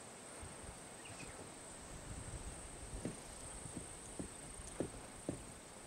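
Outdoor ambience of a steady high-pitched insect drone over a low rumble of wind on the microphone, with a few soft knocks in the second half.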